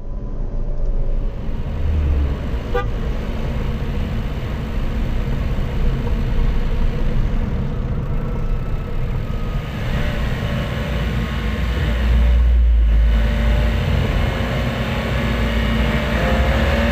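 Daihatsu Rocky's 1.0-litre three-cylinder turbo engine running while driving, picked up by a microphone inside the engine bay along with road noise. Near the end the engine note rises as the car accelerates.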